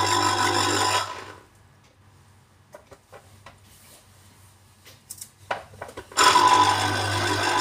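Electric citrus juicer running as an orange half is pressed onto its spinning cone. It stops about a second in when the orange is lifted off, a few light knocks and clicks of handling follow, and the motor starts again about six seconds in as a fresh half is pressed down.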